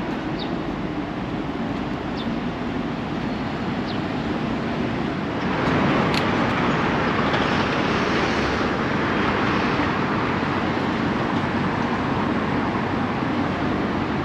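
City street traffic: a steady wash of vehicle and tyre noise that swells louder about five seconds in, as heavier traffic passes close, and stays loud.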